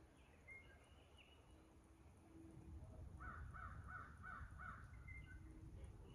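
Faint bird calls: scattered short chirps and whistles, and about three seconds in a run of five quick calls in a row.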